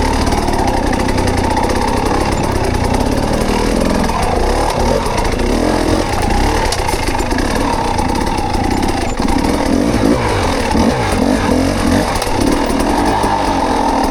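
Mountain bike being ridden over a rocky trail, heard from a rider-mounted camera: steady loud wind rush on the microphone mixed with tyre and drivetrain rattle.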